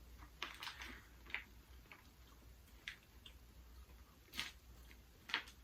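Faint, scattered clicks and small mouth sounds of people chewing pieces of beef jerky.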